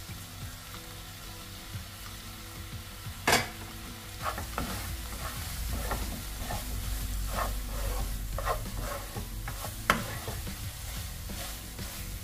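Wooden spatula stirring and scraping a thick, sticky amla and beetroot paste around a non-stick frying pan, in a run of short scrapes. There is a sharp knock about three seconds in and a click near the end.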